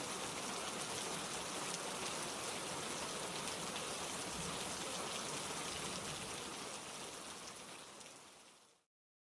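Steady rain falling on a surface, a dense even patter with fine drop crackle, fading out near the end and stopping about nine seconds in.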